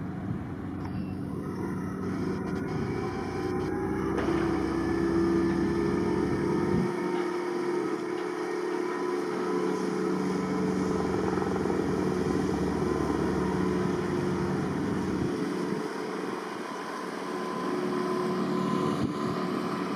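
Small boat's outboard motor running steadily while it tows an oil fence, with wind rumbling on the microphone at times.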